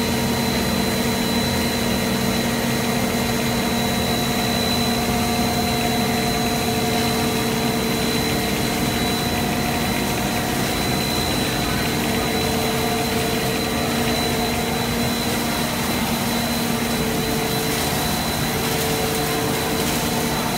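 PP/PS plastic sheet extrusion line running: a steady machinery hum from the extruder drive and roll stand, with a constant high whine over it.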